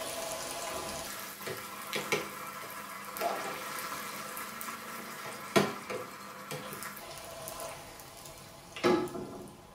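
Frozen puri deep-frying in very hot ghee in a wok: a steady sizzle as the frozen water in the puri boils off, with three sharp clicks of the spatula and tongs against the pan, the loudest near the end. The sizzle dies down as the puri is lifted out of the ghee.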